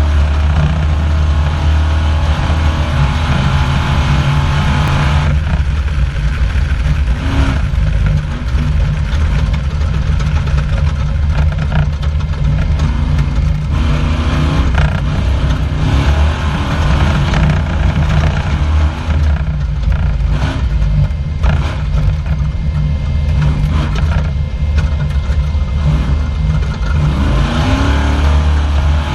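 Off-road race car's engine running hard at speed, heard from inside the car, with frequent knocks and rattles over the noise.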